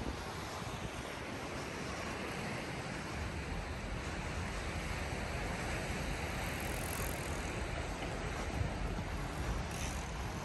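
Steady outdoor ambience: an even wash of noise with a fluctuating low rumble of wind on the microphone.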